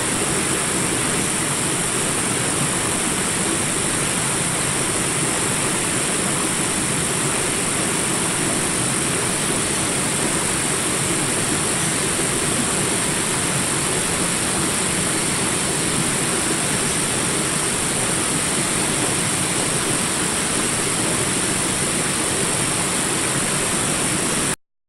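Small jungle rapids: water rushing in a steady, unbroken wash, cutting off abruptly near the end.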